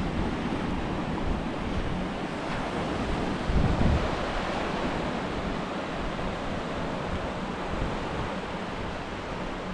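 Small ocean surf breaking and washing up the beach in a steady rush, with wind buffeting the microphone in a low gust about three and a half seconds in.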